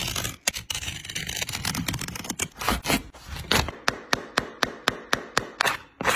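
Utility knife blade cutting and scraping through the inside of a running shoe for the first couple of seconds, then a quick run of sharp clicks and taps, about four a second, as a metal tool works on the shoe's insole board.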